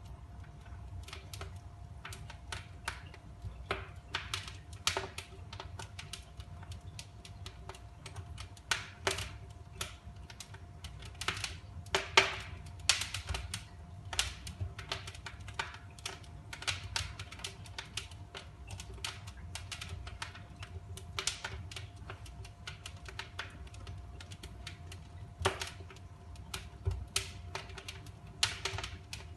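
Fireplace fire crackling: irregular sharp pops and snaps, some louder than others, over a low steady rumble.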